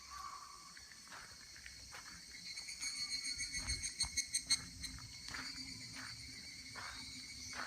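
Insects calling steadily in a high-pitched chorus, with a louder, rapidly pulsing call about three seconds in that stops after a second and a half. Faint soft taps sound now and then.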